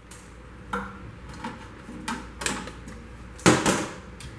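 Light clicks and knocks of hands and tools working inside the sheet-metal housing of a commercial toaster, with a louder metal clank about three and a half seconds in.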